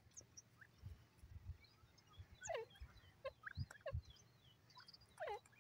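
Grey francolin calling: two descending calls, about two and a half seconds in and again near the end, among faint short high chirps.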